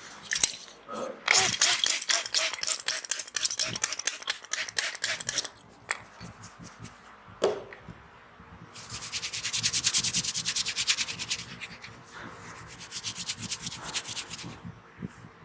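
Hands rubbing fast and rhythmically over hair and scalp in a head massage, in two long spells of quick, even strokes. A single short, sharp knock comes between the spells.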